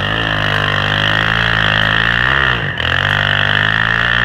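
Single-cylinder four-stroke engine of a 1984 Honda ATC 200M three-wheeler running under throttle as it is ridden through snow. Its pitch drops briefly a little under three seconds in, then picks up again.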